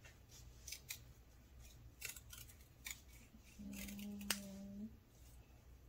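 Scissors snipping through construction paper in short, irregular cuts as a small paper heart is cut out. A steady low hum runs for about a second midway.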